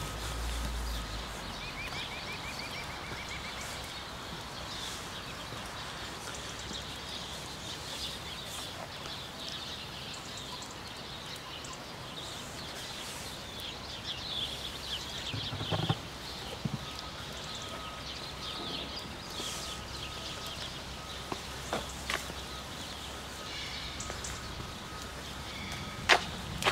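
Small birds chirping and trilling over a steady outdoor hiss, with a short trill about two seconds in and thicker chirping around the middle. A few sharp clicks come in the second half, the loudest near the end.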